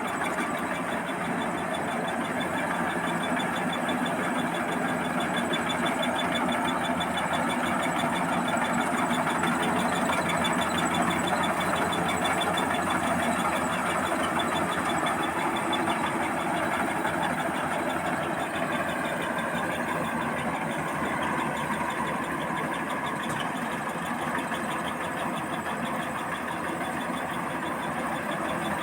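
Combine harvester running steadily while harvesting rice, its engine and threshing machinery working together, with a fast, even ticking high over the mechanical din.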